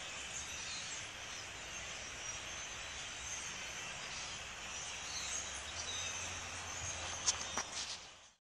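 A large flock of European starlings chattering, a dense steady mass of many overlapping squeaks and whistles. A few sharp clicks come near the end before the sound cuts off.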